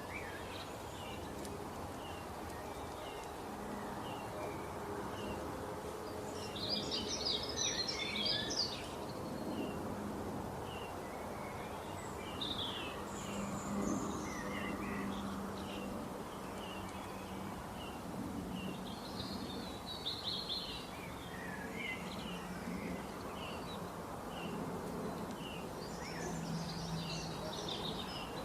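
Small birds chirping and twittering over a steady background rush: one bird repeats a short chirp every second or so, and louder bursts of rapid twittering come about a quarter of the way in, around two-thirds through and near the end.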